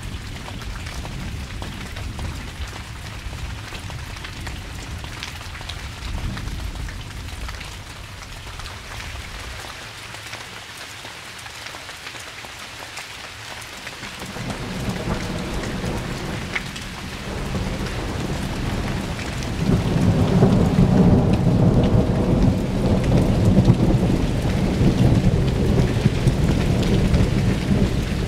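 Rain falling steadily with rolling thunder. A low rumble dies away over the first several seconds; then a new roll of thunder builds from about halfway through and is loudest near the end.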